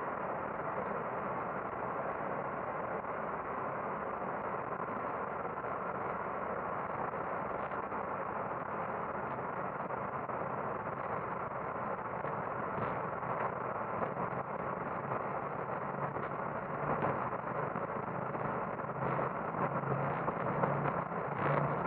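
Boeing 737-800 cockpit noise during the takeoff roll: a steady rush of engine and airflow noise. In the second half, short knocks and rattles come more often and the level rises slightly as the aircraft gathers speed down the runway.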